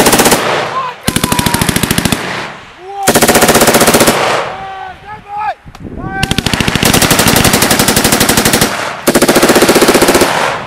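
General-purpose machine guns (7.62 mm GPMGs) firing bursts of automatic fire: about five bursts of roughly a second each, with one longer burst of about three seconds in the second half.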